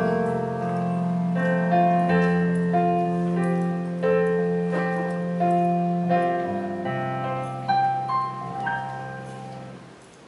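Church music on a keyboard: a slow melody of chords over long held bass notes, dying away near the end.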